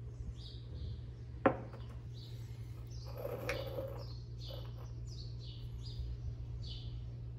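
Small birds chirping over and over in the background, in short falling notes. A single sharp knock comes about one and a half seconds in, and a brief clatter of ceramic cups on the stone counter follows a couple of seconds later.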